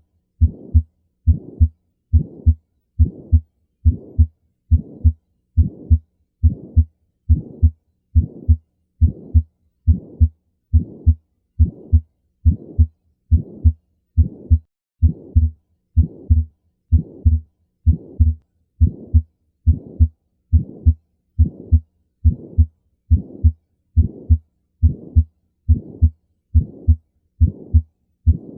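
Heartbeat of a heart with pulmonary stenosis, beating in a steady, even rhythm: each beat carries a harsh mid-systolic murmur of the kind described as crescendo-decrescendo.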